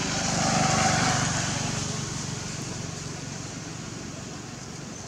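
A motor vehicle's engine passing by: a low, steady-pitched hum with hiss that swells to its loudest about a second in, then slowly fades away.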